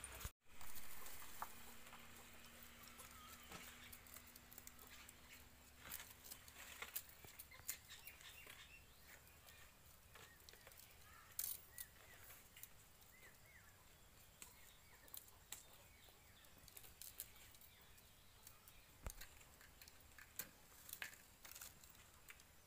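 Quiet outdoor ambience with scattered light rustles and clicks of dry leaves and paper being handled at a firewood stove, and a few faint bird chirps. A single knock stands out about half a second in.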